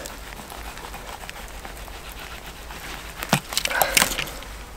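A few short knocks and scrapes about three seconds in, from a fillet knife and a cutbow trout being handled on a wooden log while the fish is filleted.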